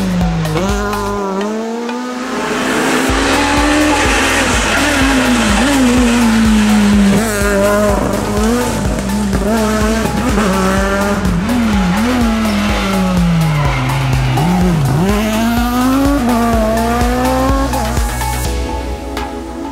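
Renault Clio rally car's engine revving hard at full throttle, its pitch climbing and dropping again and again through quick gear changes and lifts. Background music with a steady beat runs underneath.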